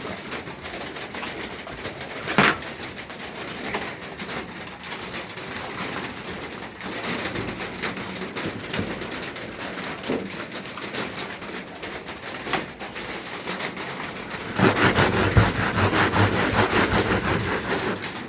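Sandpaper rubbed by hand over a painted metal truck toolbox: scattered light scuffs and a single knock about two seconds in, then a few seconds of fast, even back-and-forth sanding strokes near the end.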